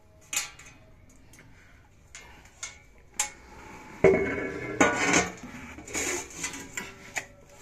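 Square stainless-steel salon-chair base with its hydraulic pump bolted on being handled and turned over. A few sharp metal clicks, then louder clanking with the steel sheet ringing, starting about four seconds in.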